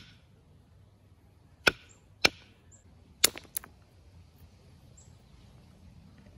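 Antler billet striking a flint core in percussion flaking, trying to drive off a thick flake: four sharp, dry knocks in the first four seconds, the last two close together.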